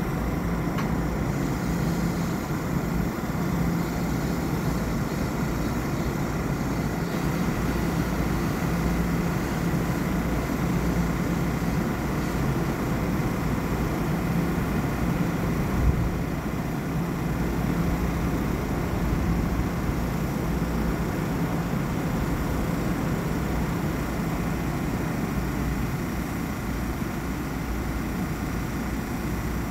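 Steady hum of a standing Long Island Rail Road M7 electric multiple-unit train, with a few faint steady whining tones over it. One short thump about halfway through.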